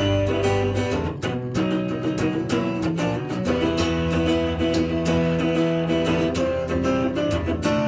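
Acoustic guitar strummed in a steady rhythm with no singing, an instrumental break. The chords change about a second in, again around three seconds in, and near the end.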